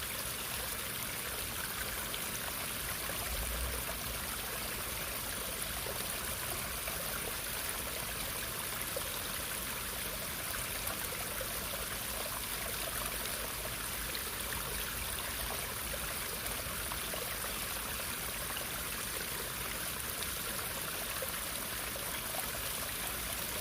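Running water, a steady, even rush like a small stream or trickling water, with no breaks or changes.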